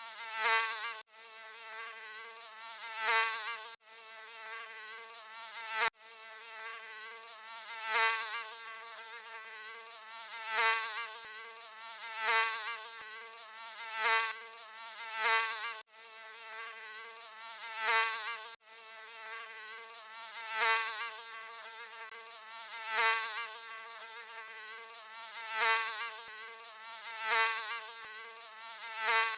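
Mosquito wing whine, a high buzz with many overtones that swells loud and fades away about every two seconds, like an insect flying past close to the ear, with a few brief sudden cut-outs in the loop.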